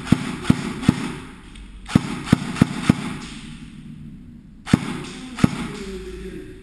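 Airsoft electric M4-style rifle firing single shots in quick strings, about two or three shots a second: three shots, then four about two seconds in, then two more near the end.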